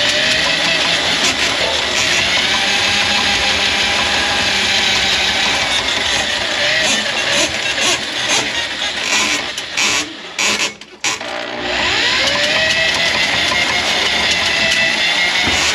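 Electric motor of a plug-in drain-clearing machine running steadily with a whine. About ten seconds in it cuts out for a moment, then spins back up with a rising whine.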